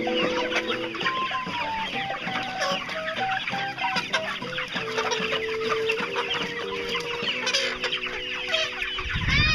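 A flock of hens clucking continuously in a dense, overlapping chorus of short calls.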